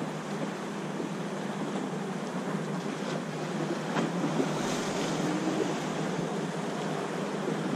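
Steady wash of sea and wind: waves breaking on a rock jetty and slapping the boat, with wind on the microphone and a low steady hum underneath. Two faint knocks about three and four seconds in.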